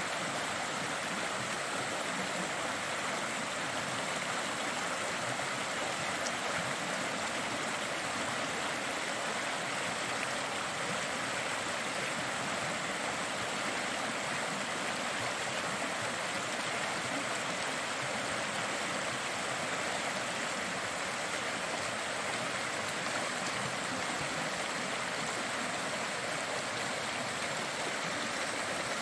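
Fast mountain creek rushing and splashing over rock slabs in small white-water cascades, a steady, unbroken rush of water.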